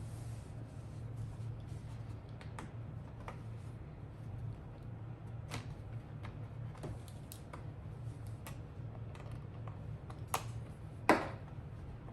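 Scattered small plastic clicks and taps as a laptop's bottom case is worked loose from its clips, with a louder sharp click about eleven seconds in. A low steady hum runs underneath.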